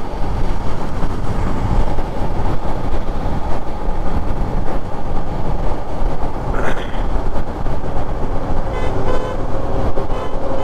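Steady wind rush and engine noise of a motorcycle at highway speed on the rider's microphone. Near the end a vehicle horn honks in several short blasts.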